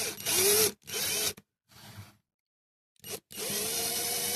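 Cordless electric drill run in several short trigger bursts that spin up and fall back, then, after a short pause, running steadily as the bit drills into a rivet in a die-cast toy car's base.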